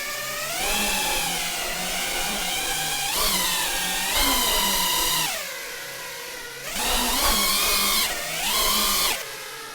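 FPV racing drone's brushless motors whining, the pitch rising and falling repeatedly as the throttle is punched and eased off, with louder bursts about four, seven and eight and a half seconds in.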